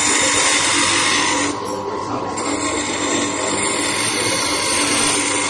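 Stained-glass grinder running, its bit grinding the edge of a piece of green glass in a steady high whine. The grinding noise eases briefly about one and a half seconds in.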